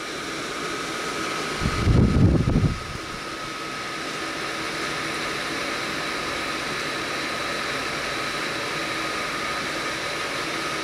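Holmes mini tower fan running on its high setting: a steady rush of air with a faint steady whine, growing louder over the first few seconds as it comes up to speed. A brief low rumble about two seconds in.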